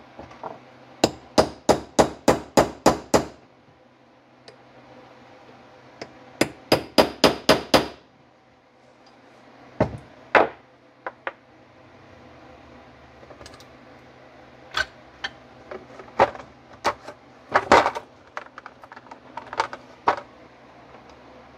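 Small ball-peen hammer tapping a plug into the choke-shaft bore of a Marvel Schebler carburetor body. Two quick runs of light taps come at about four a second, one starting about a second in and another around six seconds in. After that come scattered single taps and small metal clinks.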